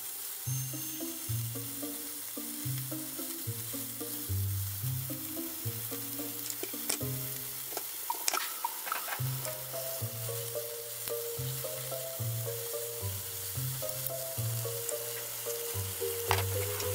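Meat-wrapped vegetable rolls sizzling in oil in a frying pan, under background music with a steady bass line. A few sharp knocks of a kitchen knife on a wooden cutting board come about eight seconds in.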